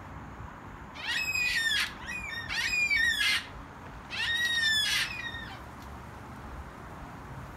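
Yellow-tailed black cockatoo calling: three long calls about a second each, one after another over about four seconds.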